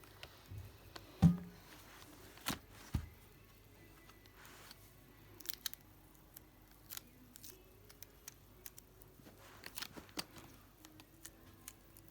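Scattered small clicks and taps of hands and tools working on a laptop's casing and parts, with one louder knock about a second in, over faint background music.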